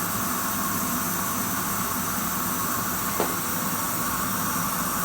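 Electric vacuum cleaner running steadily: a constant motor hum and air hiss with a steady high tone over it, and one faint click about three seconds in.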